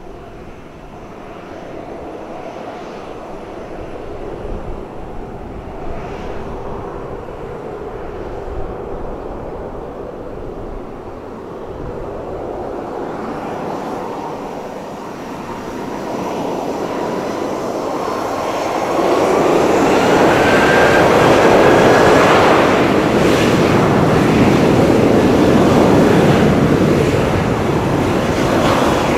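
Boeing 737-800's twin CFM56-7B turbofan engines spooling up to takeoff thrust. The engine sound grows steadily louder, with a whine rising in pitch about two-thirds of the way in. It then stays loud and steady as the jet starts its takeoff roll.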